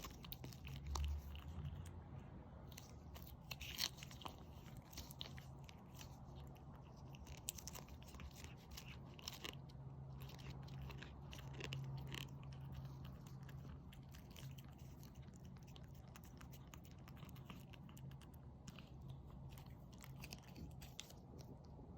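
A cat licking and chewing at a Churu paste treat, a steady run of small wet clicks and smacks.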